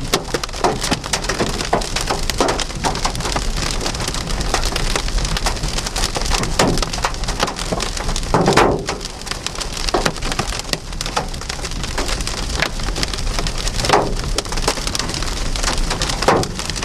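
Heavy rain and hail pelting a vehicle: a dense hiss of rain full of sharp ticks, with a few louder thuds, the biggest about halfway through.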